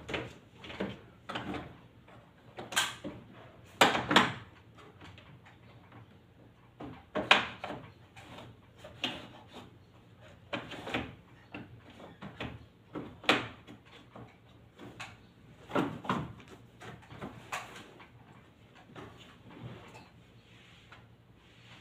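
Irregular plastic clicks, knocks and scrapes from the indoor unit of a Carrier wall-mounted split air conditioner as its parts and drain line are handled and fitted back together after declogging.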